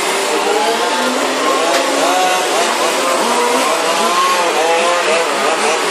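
Several large-scale RC race cars' small two-stroke petrol engines revving up and down together, their pitch rising and falling again and again over a steady hiss as the cars lap the track.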